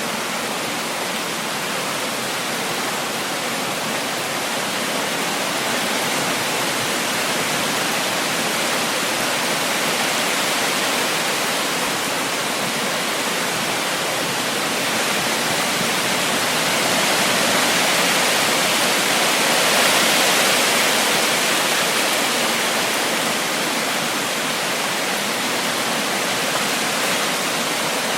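Heavy rain pouring down as a dense, steady hiss of drops, swelling a little past the middle.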